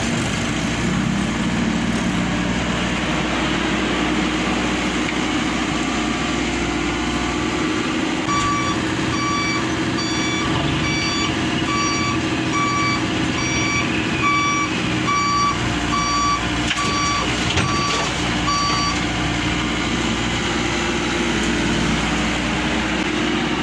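Truck engine running steadily. For about ten seconds in the middle, its reversing alarm beeps at a regular pace, a little faster than once a second.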